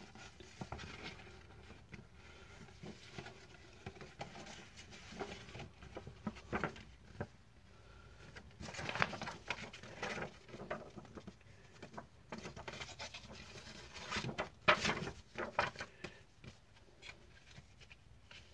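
Paper CD booklet being unfolded and handled, rustling and crinkling, with light clicks and taps from handling a plastic CD jewel case. The loudest rustles come in bursts about halfway through and again a few seconds later.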